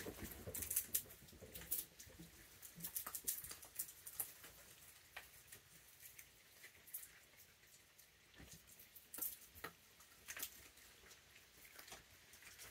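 Raccoons moving about and handling treats: faint, scattered clicks and small rustles at irregular intervals.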